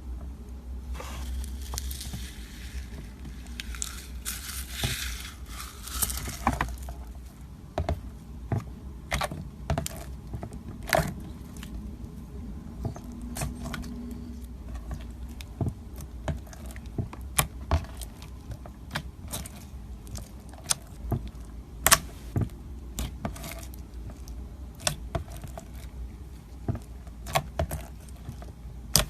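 Slime being kneaded and pressed by hand: a crackling rustle for the first several seconds, then a run of sharp clicks and pops over a low steady hum.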